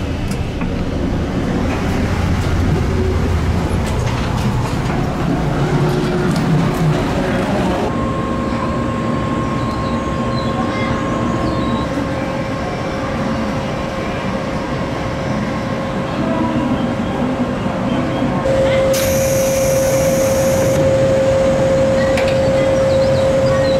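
Train noise from a JR 381 series limited express: first a low rumble inside the coach at the station, then beside the standing train on the platform, where a steady hum runs under the station noise and grows louder near the end. A short burst of hiss comes about three quarters of the way through.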